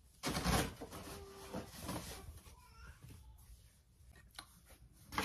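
Rustling of a cotton shirt being handled, with a loud brush about half a second in, then faint scattered handling noises.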